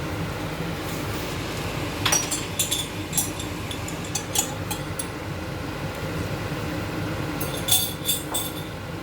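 A metal utensil clinking against a cooking pot in scattered clusters of light strokes, as when stirring a curry, over a steady low hum.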